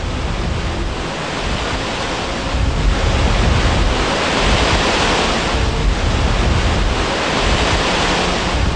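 Waterfall at the Plitvice Lakes: a steady rush of falling water, growing louder about three seconds in.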